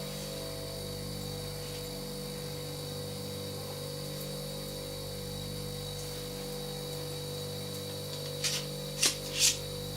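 Steady electrical hum with a thin high-pitched whine. Near the end come three short hissing or scraping noises.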